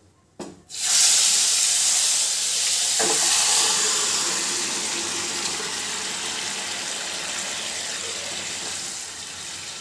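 Pressure-cooked mutton chops and their liquid poured into hot oil with Kashmiri red chilli in a kadai. They set off a loud sizzle about a second in that slowly dies down, with a single knock about three seconds in.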